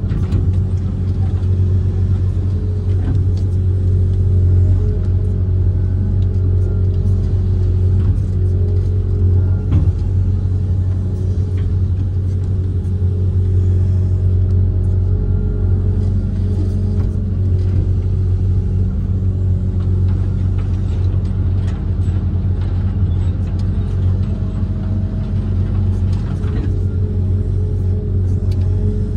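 Kobelco SK130 amphibious excavator's diesel engine running with a steady low drone, heard from inside the cab, with a few faint knocks.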